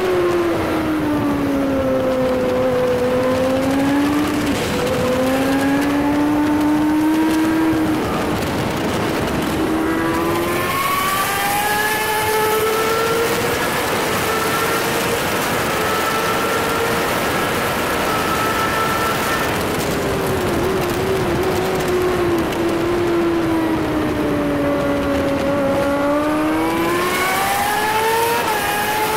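Sport motorcycle engine recorded onboard at track speed, over steady wind rush. Its pitch falls as the bike slows for a corner, climbs back in steps as it accelerates through the gears, holds high on the straight, then falls and rises once more near the end.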